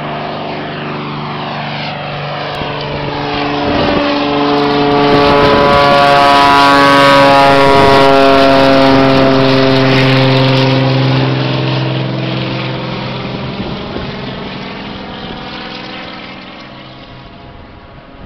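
Cessna 206 single-engine propeller plane at full climb power just after takeoff, flying overhead. The engine-and-propeller drone swells to a loud peak, drops slightly in pitch as the plane passes, then fades as it climbs away.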